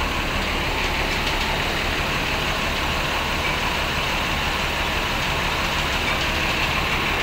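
Large diesel bus engine idling steadily.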